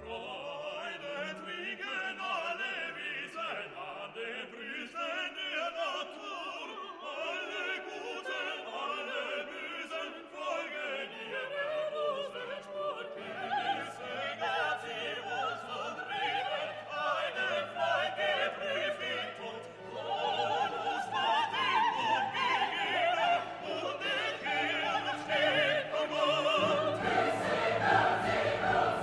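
Background music: operatic classical music with singing voices and orchestra, swelling louder about two-thirds of the way through.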